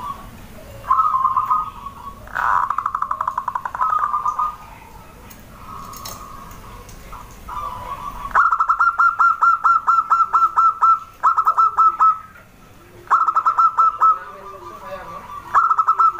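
Zebra dove (perkutut) song: phrases of rapid, evenly pulsed staccato cooing notes held near one pitch, each phrase lasting one to two seconds and repeated after short gaps. From about eight seconds in the phrases come louder and clearer.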